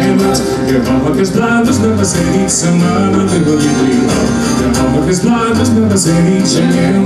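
Folk band playing a traditional Scottish ballad live, a male voice singing over strummed acoustic guitar and other instruments with a steady beat.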